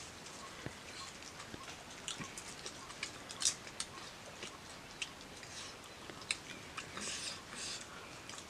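Close-up eating sounds of a person chewing and smacking on grilled fish: a run of short, irregular clicks and crackles, with a couple of brief rustles near the end as the fish is picked apart by hand.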